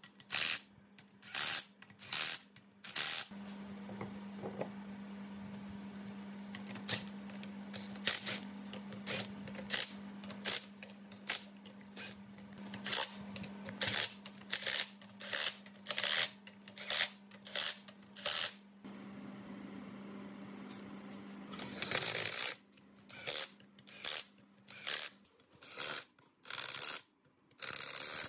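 Cylinder-head bolts on an air compressor pump being tightened with a ratchet wrench: short metallic ratcheting bursts about twice a second, with a longer burst near the end. A steady low hum runs under most of it.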